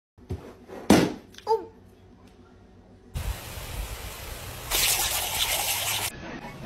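A balloon bursts with a sharp pop about a second in, followed by a short high cry. Then a lawn sprinkler's water jet hisses steadily, growing louder for about a second and a half as the spray hits the dog's face.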